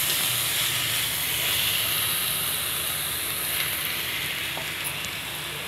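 Onions with garlic and crushed ginger frying in hot mustard oil in a pan: a steady sizzle that slowly grows a little quieter.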